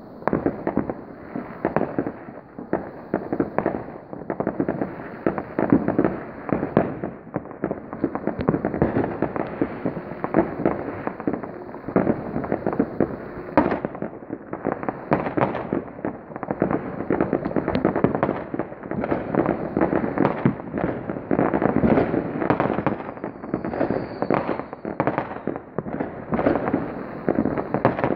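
Many fireworks and firecrackers going off at once: a dense, continuous barrage of bangs and crackle with no pause.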